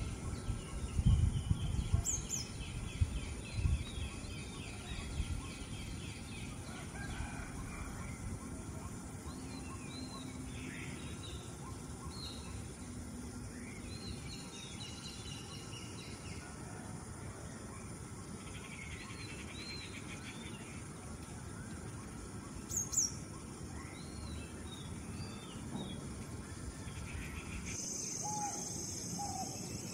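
Outdoor ambience of small birds chirping repeatedly over a steady low rumble, with a few low thumps in the first few seconds and one brief sharp sound about 23 seconds in. Near the end the sound changes to a high, steady insect-like buzz with lower bird calls.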